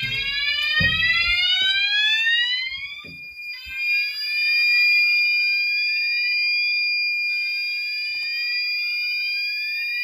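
Unipos F4000 fire alarm system sounding after its smoke detector has been triggered. The sounder gives repeated rising sweeps over a steady high-pitched tone.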